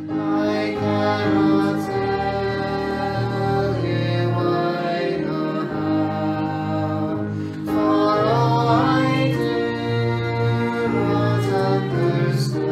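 A hymn being sung in long held notes over sustained chords.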